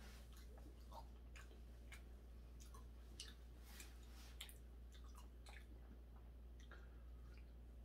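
Faint chewing and small wet mouth clicks from a person eating raw hairtail sashimi, over a low steady room hum.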